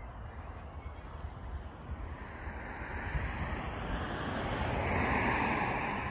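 A vehicle passing on the road alongside: a rush of tyre and engine noise that swells to its loudest about five seconds in and then starts to fade, over a low wind rumble on the microphone.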